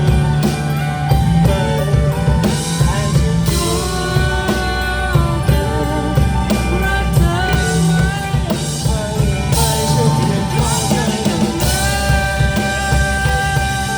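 Live band playing a rock-pop song: drum kit with cymbals and a heavy bass line under a held, bending melodic lead.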